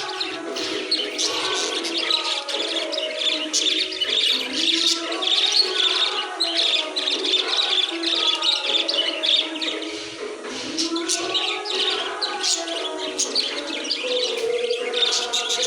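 Many small birds chirping and calling rapidly and continuously, over background music.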